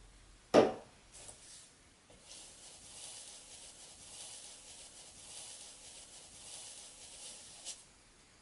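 A wide flat paintbrush scrubbing acrylic paint onto paper: a steady, soft rasping that runs for about five seconds. It is preceded by a single sharp knock about half a second in.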